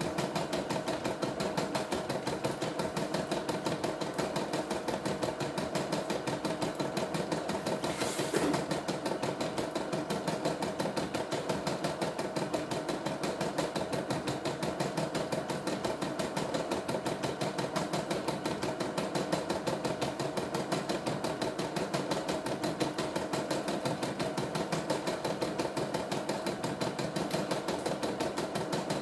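CNY E960 computerized embroidery machine stitching a design through its hoop attachment: a rapid, steady chatter of needle strokes at an even pace, with one brief louder click about eight seconds in.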